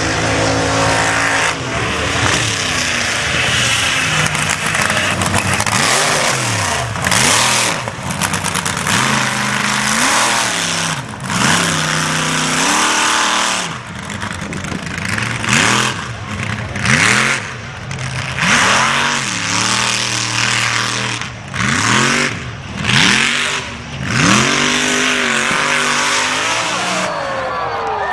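Mud bog truck's engine running hard at full throttle, with the revs climbing and dropping again and again, about every second and a half in the second half, as the wheels spin.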